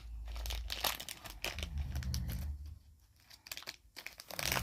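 Plastic wrapping of a surprise toy box crinkling and rustling as it is handled and unwrapped, in irregular crackles that stop for about a second past the middle.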